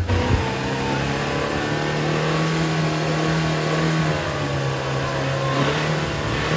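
Off-road 4x4 engine running at raised, fairly steady revs, with a slight rise and fall in pitch about five seconds in.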